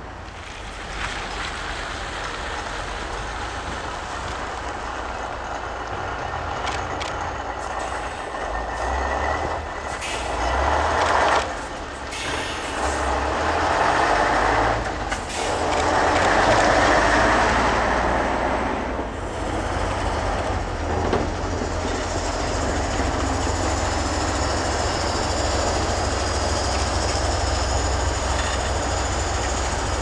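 Heavy Tatra dump trucks driving past, their diesel engines running under load. The sound swells twice, loudest about a third of the way through and again just past the middle, with brief sudden drops, then settles into a steadier engine rumble.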